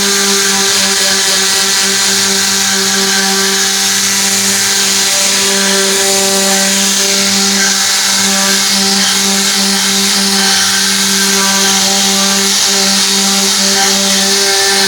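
Tornador pneumatic cleaning gun running: a loud air hiss with a steady buzzing hum. The hum spins up just before and cuts off at the very end.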